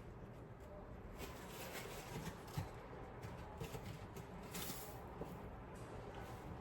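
Faint kitchen handling sounds: quiet scraping and wiping with a few small ticks of a utensil, as butter is cleaned off a utensil or bowl.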